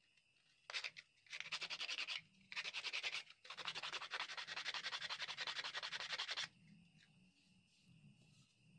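Coarse sandpaper rubbed fast back and forth over the inner surface of a sheep-horn bracelet blank, a rapid run of scraping strokes in three spells that stops about six and a half seconds in. It is the hand-sanding stage that smooths the inside of the horn and brings out its grain.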